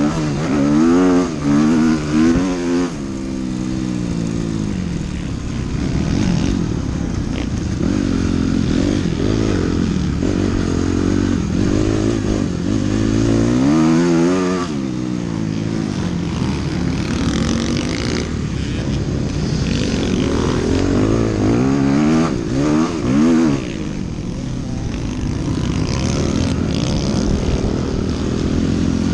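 Dirt bike engine racing on a motocross track, heard close from the bike itself: the revs climb and fall over and over as the rider works through the gears, with deep drops off the throttle at about three and fourteen seconds in before it pulls hard again.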